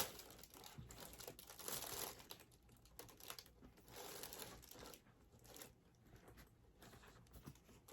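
Faint crinkling of packaging being handled, in a few short, irregular bursts.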